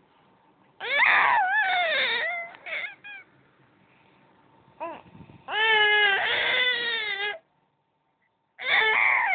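Baby's high-pitched crying vocalisations in three long bouts of one to two seconds each, with a shorter one between them and quiet pauses in between; the pitch falls through the first cry and holds level in the second. Whether she is upset or happy is unclear.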